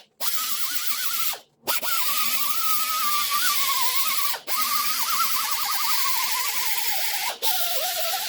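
An electric power tool working steel: its motor whine wavers and sags under load, with a hiss of abrasion over it. The sound is broken by several short silences.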